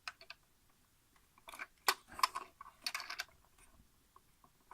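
Plastic canister-filter fittings being handled and pushed together: scattered light clicks and a couple of short scrapes in the middle, as the inlet/outlet bracket is worked against the filter head's rubber O-rings without seating.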